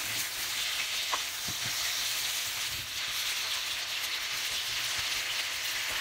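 Potato slices sizzling steadily in melted dairy-free spread while being stirred with a wooden spatula, with a few faint scrapes against the dish.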